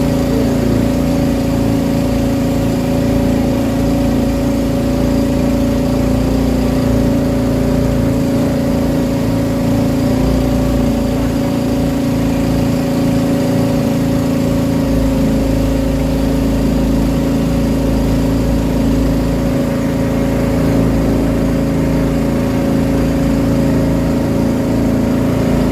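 Boat engine running steadily at constant speed, a droning motor note with no change in pitch.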